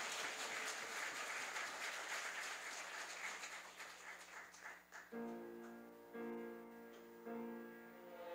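Instrumental music with piano: a dense run of quick notes for about five seconds, then held chords that change about once a second.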